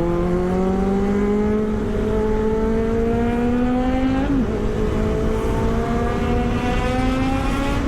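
Kawasaki Z900's inline-four engine pulling hard under acceleration, its pitch climbing steadily through one gear, dropping with an upshift about four and a half seconds in, then climbing again to another upshift at the end. Steady wind rush runs under it.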